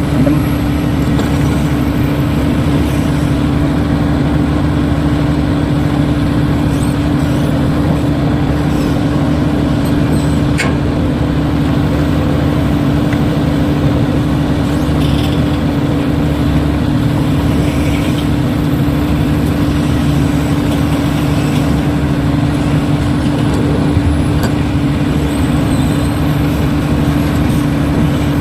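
A steady, unchanging engine-like drone with a constant low hum and one strong held tone, with no revving or changes in pitch.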